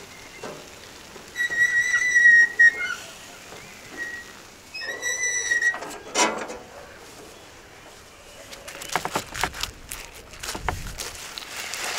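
Two long, steady, high whistled notes about three seconds apart, then a run of sharp clicks and scrapes near the end.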